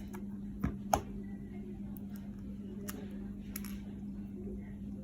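Two sharp clicks about a second in, then a few faint taps, from a small plastic camera being handled, over a steady low hum.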